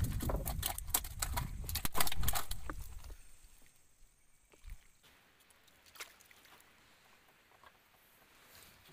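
A freshly landed black bass flapping and slapping against the boat, a rapid run of knocks and thumps for about three seconds, then only a few scattered taps.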